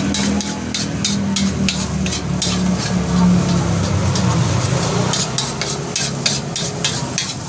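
A metal spoon and fork clinking and scraping on a plate of fried rice as someone eats, with a steady low hum underneath.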